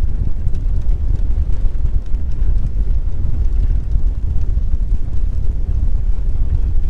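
Strong wind buffeting a microphone on a sailboat under sail: a steady, loud, gusting low rumble.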